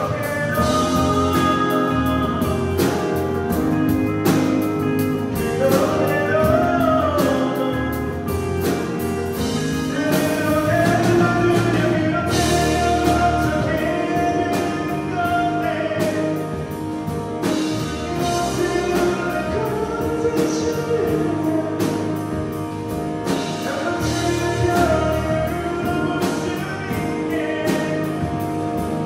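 Live rock band playing a song: a male lead vocal sung over acoustic and electric guitars, bass, keyboard and a drum kit keeping a steady beat.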